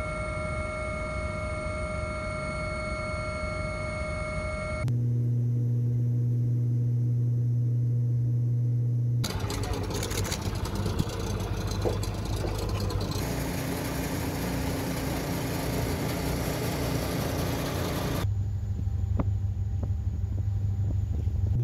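Engine and wind noise of a sea search. First a helicopter cabin's steady engine whine with several high tones over rotor noise. Then a steady low hum, and from about nine seconds in, rough noise of boat engines and wind over open water, ending in a steady low engine hum.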